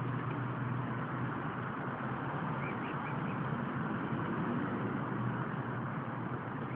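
Mute swan cygnets peeping faintly a few times, about two and a half to three seconds in, over a steady rumbling background noise.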